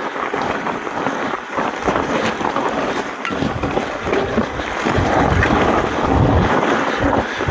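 Mountain bike ridden over a rough trail: tyres crunching and rattling over stones and loose ground, with wind rumbling on the microphone, heavier in the second half.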